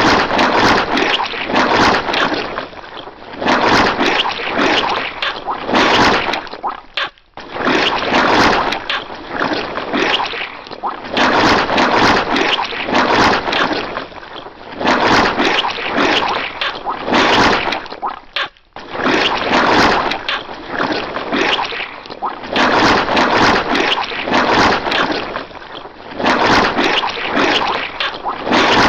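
Wet squashing and squelching sound effect: dense, noisy squishes follow one another closely. The sequence breaks off briefly twice, about eleven seconds apart, as if looping.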